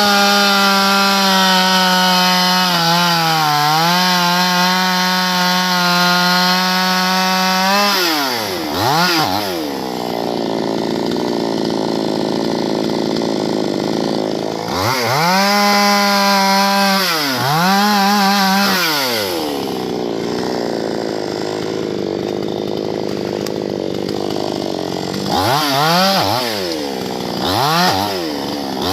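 Chainsaw running at full throttle for several seconds, its pitch dipping briefly as it takes load, then dropping off. It is revved up again several times, with lower, rougher stretches between the revs.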